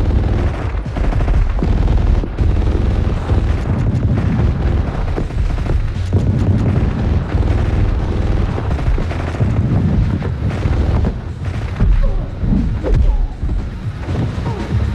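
Action-scene gunfight sound effects: a string of gunshots from a submachine gun and pistols, mixed with booming impacts over a heavy low rumble.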